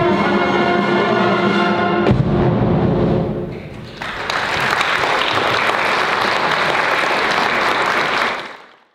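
A community orchestra of strings, winds, brass and bass drum holds the closing chord of a march, cut off about two seconds in with a bass drum stroke; the chord rings and fades, then the audience applauds.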